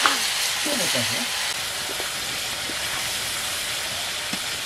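Chicken frying in an iron wok over a wood fire, a steady sizzling hiss.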